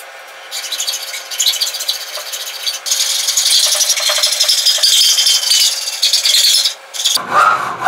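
Hand hacksaw cutting through a block of aluminum clamped in a bench vise: a loud, high-pitched rasp of repeated back-and-forth blade strokes. It starts about half a second in and stops near the end.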